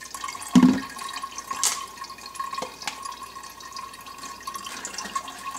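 Blended pomegranate and beetroot juice pouring through a metal mesh strainer and trickling into a glass pitcher. There is a knock about half a second in and a few light clicks after it.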